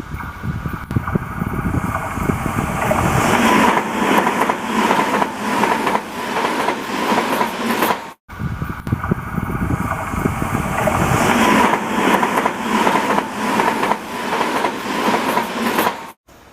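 TOMIX N-gauge model of a Tobu 100 series Spacia running along the track: rapid clicking and rattling of the wheels on the rails over a steady motor whine. It happens in two passes that each grow louder, broken by a sudden cut about halfway through.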